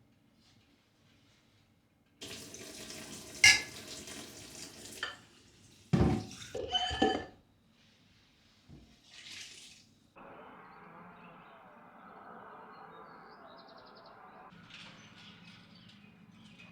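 Water running in two spells. The first, about two seconds in, is broken by one sharp knock. A few clattering knocks follow, then a steadier, softer run of water to the end.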